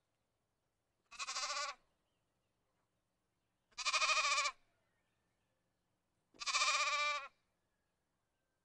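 A lamb bleating three times, each bleat under a second long with a quavering, wavering pitch.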